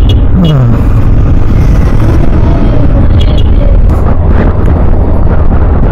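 Motorcycle running along a road at speed, a steady low engine drone with wind noise on the microphone; about half a second in the engine note falls briefly.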